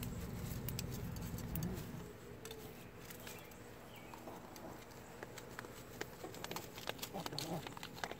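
Faint rustling with scattered light clicks and crackles in dry leaf litter, after a low rumble that fades about two seconds in.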